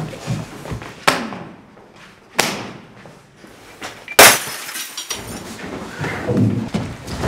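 Two sharp knocks, about a second in and again near two and a half seconds, then a loud smash just after four seconds with glass shattering and ringing out for about a second.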